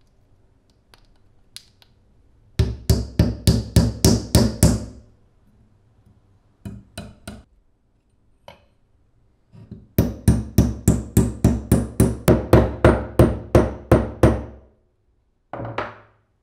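A small hammer tapping wedges into the eye of a tomahawk head to lock it onto its wooden handle: two long runs of quick taps, about four a second, with a few single taps between. The taps in the later run carry a high ring.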